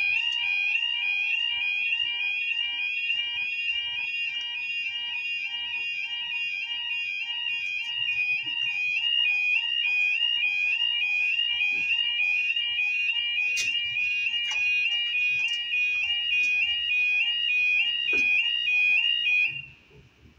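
UK level crossing yodel alarm: a loud two-tone warble switching rapidly back and forth, the audible warning that a train is coming and the barriers are lowering. It stops suddenly near the end.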